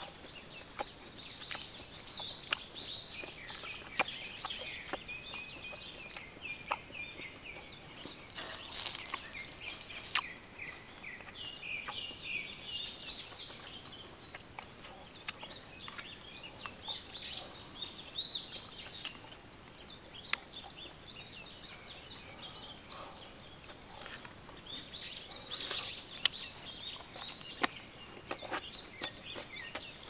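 Small birds chirping and twittering in quick bursts that come and go, with scattered sharp clicks and a short rustling burst about nine seconds in.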